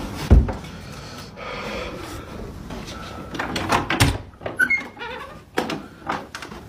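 A few knocks and thumps at a wooden interior door, the loudest a low thump about a third of a second in and another about four seconds in, with lighter clicks near the end.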